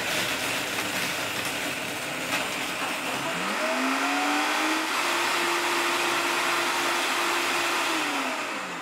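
Optimum 9900 commercial blender running and crushing ice with frozen fruit cubes, with sharp strikes from the ice in the first couple of seconds. About three seconds in, its motor whine rises as the speed dial is turned up. The whine holds steady, then falls away near the end as the speed is turned back down.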